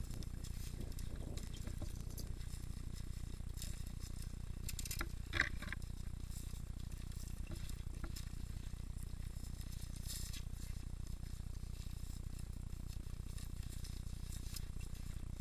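Mountain bike riding over a dirt forest trail: a steady low rumble with light rattling and clicks from the bike, and one sharper clink about five seconds in.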